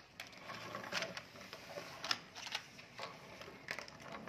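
Small plastic toys clicking and knocking against each other and against a plastic toy trailer as toy cars are set into it, in irregular taps.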